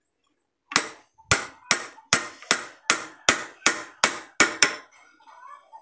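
Hammer blows, about eleven in a row at roughly two to three a second, driving a part of a car's steering assembly into place during a steering bushing repair; they stop about a second before the end.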